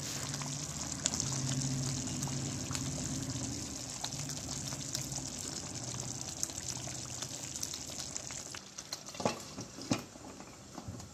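Pea-and-paneer curry bubbling steadily in an open pan on the boil. Near the end a glass lid is set on the pan with two light clinks.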